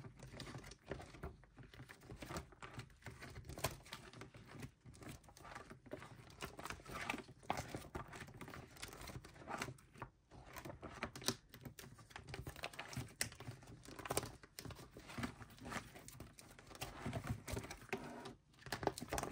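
Plastic sleeve pages of a photocard binder crinkling and rustling as they are handled and turned, with many small irregular clicks and taps.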